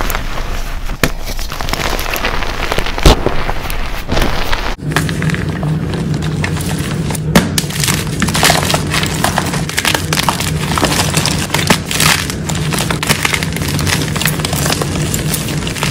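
Hands crumbling and crushing gym chalk: dense crunching and crackling of dyed chalk pieces and powder breaking apart, with sharp snaps here and there. About five seconds in it changes to soft chalk blocks being squeezed and crushed in the hands, over a low steady hum.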